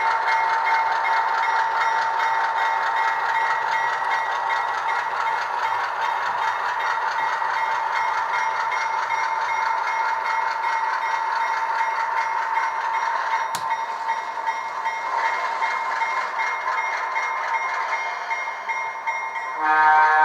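ESU LokSound V4 decoder in an HO Alco RS-2 model playing diesel locomotive engine sound through the model's small speaker, running steadily, with one sharp click about two-thirds of the way through. Music starts just before the end.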